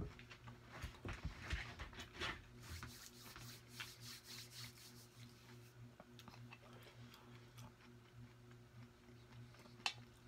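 Close-miked chewing and small wet mouth sounds of someone eating, then a fork picking at food on a metal tray, with one sharp click near the end. A faint steady low hum runs underneath.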